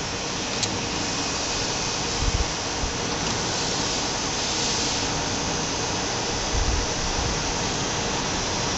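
Steady, even hiss of background noise, with brief low rumbles about two seconds in and again near seven seconds.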